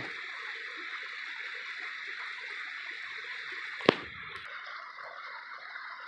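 Mountain creek running steadily, a constant rushing hiss. A single sharp click about four seconds in, after which the rushing goes on a little quieter.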